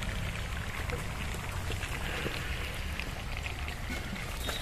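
Mutton curry simmering in a large steel kadai over a wood fire, with faint bubbling ticks and light ladle contact, over a steady low rumble.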